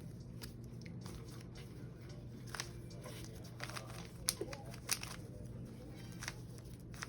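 A stiff carbon-fibre 3x3 Rubik's cube being twisted by hand: scattered plastic clicks and scrapes as its layers are forced round, over a low steady hum.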